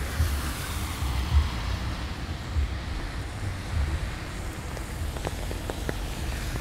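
Wind buffeting the microphone in uneven gusts over a steady hiss of rain and traffic on a wet street. A few light ticks come a little past the middle.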